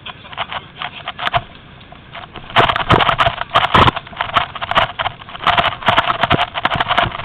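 Footsteps crunching through dry leaves and brush, with twigs and foliage snapping and rustling against the body. Sparse at first, it turns into a fast, dense crackle about two and a half seconds in.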